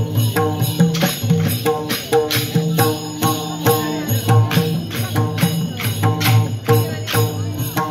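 Traditional Newari dance music: a fast, steady beat of jingling metallic percussion over sustained low pitched tones.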